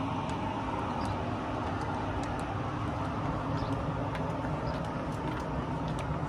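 Steady outdoor background rumble with scattered faint ticks.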